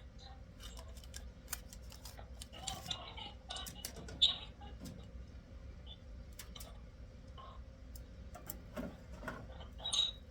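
Scattered light clicks and taps from small objects being handled, with a sharper tap about four seconds in, over a steady low hum.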